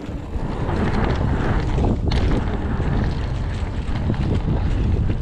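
Wind rushing over the microphone of a mountain bike descending a dirt trail, with tyre rumble and small knocks and rattles from the bike over the bumps. It grows louder during the first second, then holds steady.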